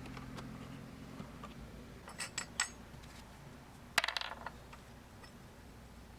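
Small metal brake-pad hardware clips clinking as they are handled. A few light clicks come about two seconds in, then one sharper metallic clink with brief ringing about four seconds in.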